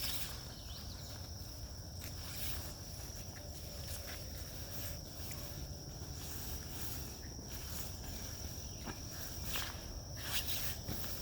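Crickets trilling in one steady high drone, with scattered crunching footsteps and a low background rumble.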